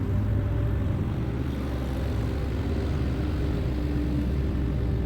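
Avant 640 compact loader's diesel engine running steadily under work. A brief higher steady whine joins it about three seconds in.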